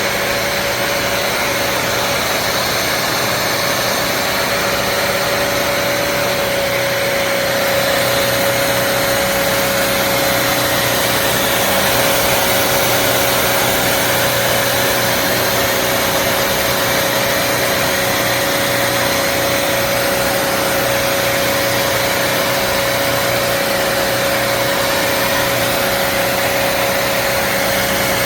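Bissell CrossWave HydroSteam Pet wet-dry vacuum running steadily, its motor giving a constant whine over a loud even rush.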